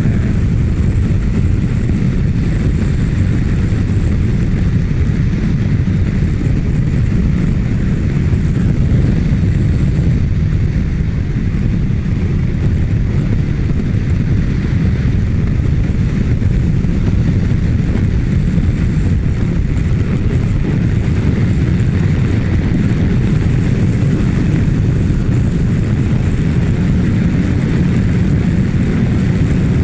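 Wind rushing and buffeting over the microphone of a motorcycle at highway speed, about 120 km/h, with the Kawasaki Ninja1000SX's inline-four engine running steadily underneath. The noise is loud and even throughout.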